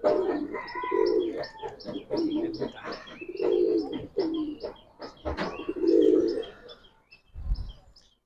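Male domestic pigeon cooing in repeated loud bouts, with short high chirps and clicks throughout and a low thump near the end.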